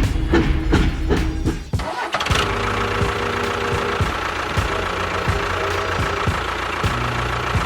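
A beat of music cuts off about two seconds in, and an engine then starts and runs at a steady idle.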